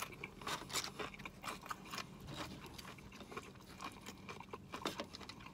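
Close-up chewing of a tortilla chip loaded with burrito-bowl toppings: a run of irregular small crunches and wet mouth clicks.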